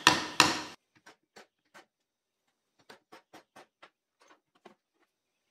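Hammer blows on a steel bearing driver, seating a new inner spindle bearing in a Dana 60 front axle spindle: one sharp metallic strike about half a second in that rings briefly, then a run of much fainter light clicks.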